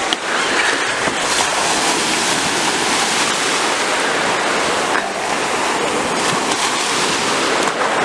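Rough sea surf: waves breaking and slapping in the shallows with a steady rushing wash.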